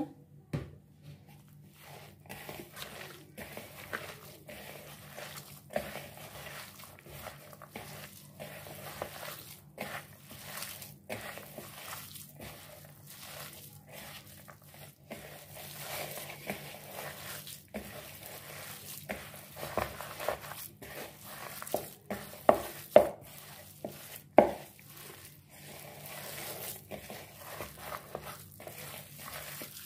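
Raw chicken mince, mixed with gram flour, chopped onion and spices, being kneaded and squeezed by hand in a plastic bowl: irregular soft squishing and rustling, with a few sharper knocks against the bowl about two-thirds through. A faint steady hum runs underneath.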